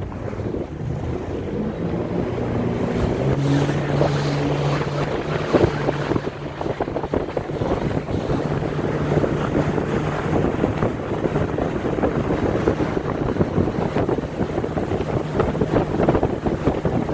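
Wake boat's inboard engine running at surf speed, a steady drone that climbs in pitch over the first few seconds and then holds, under heavy wind buffeting on the microphone and rushing water from the wake.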